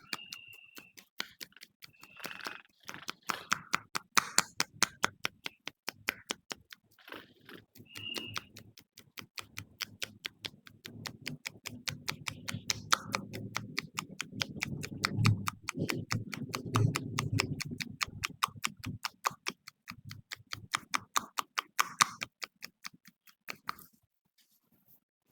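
Rapid, evenly spaced hand slaps of a percussive head massage, stopping shortly before the end, with a low rumble underneath for several seconds in the middle.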